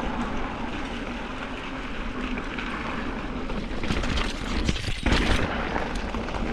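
Mountain bike riding along a dirt trail: a steady rush of wind and rolling noise with a low rumble and a faint steady hum, and a few knocks and rattles over bumps about four to five seconds in.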